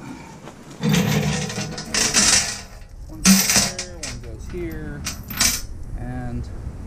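Steel safety chain links clinking and rattling as the chain is lifted off the dolly's tongue and laid out and hooked into place, in several loud bursts of clatter.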